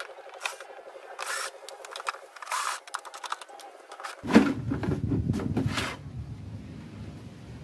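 Cordless drill-driver running in short bursts to back out the screws of a CRT TV's plastic back cover. About four seconds in comes a sharp knock, followed by a couple of seconds of plastic scraping and rubbing as the cover is handled.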